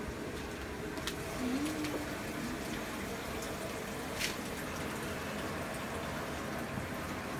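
Water running steadily into the tub of a small semi-automatic washing machine (tanquinho) as it fills, with a few faint knocks about a second in and again about four seconds in.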